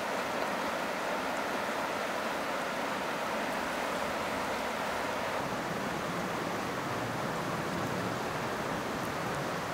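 Steady rushing of a small mountain creek's flowing water.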